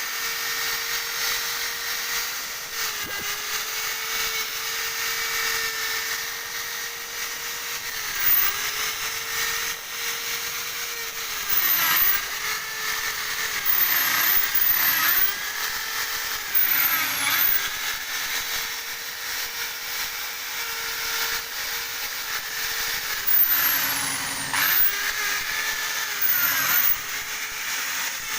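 Electric drill spinning a wire brush against an engine block to scrub off grime and rust, the wire bristles scraping with a steady hiss. The motor's whine dips in pitch and climbs back each time the brush is pressed in, several times, most often in the second half.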